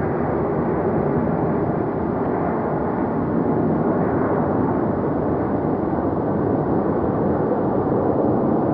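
Deep, steady rumble of a jet airliner landing, the sound apparently slowed down along with the slow-motion picture, with a faint held tone under the roar.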